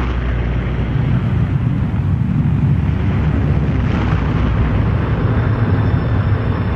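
Engines of B-17 Flying Fortress bombers droning: a deep, steady rumble.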